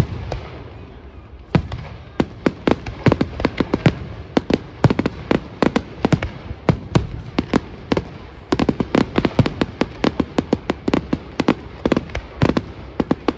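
Fireworks display: rapid, irregular bangs and crackles of shells bursting, coming in dense volleys.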